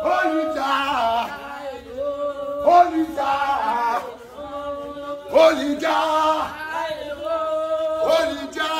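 A man's voice singing a chant-like melody, with long held notes that slide between pitches and break off every second or so.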